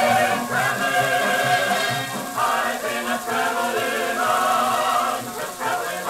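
An old 78 RPM record playing through the Voksun record player's built-in speakers: music with singing in long held notes, over a steady hiss.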